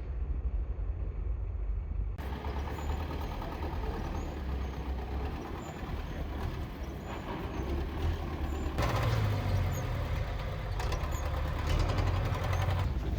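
Street noise: a steady low rumble of vehicle engines and traffic, with wind on the microphone. The sound changes abruptly about two seconds in and again past the middle, as the footage cuts.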